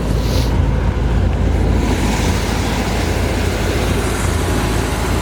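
1969 Chevrolet Corvette's original 350 cu in, 300 hp V8 idling with a steady, deep exhaust rumble.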